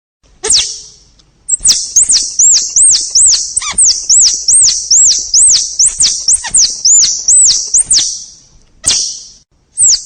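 Squirrel calling: a rapid run of high-pitched chirps, about three a second, each rising and falling in pitch. The run lasts about six seconds and is followed by a few separate chirps near the end.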